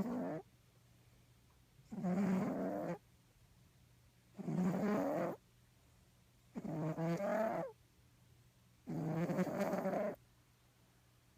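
Domestic cat snoring, close up: a buzzy snore about a second long on each breath, repeating roughly every two and a half seconds, with quiet pauses between.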